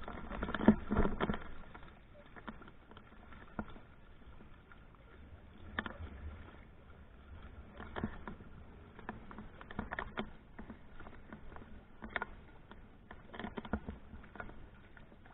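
Water lapping and slapping against a small kayak's hull and outrigger floats, with irregular light taps and knocks. It is louder for the first second or so.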